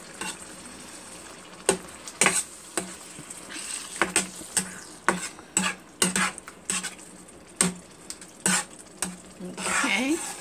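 A metal utensil stirring thick meat sauce in a pan, knocking and scraping against the pan bottom in irregular clicks, with a faint sizzle of the sauce cooking beneath.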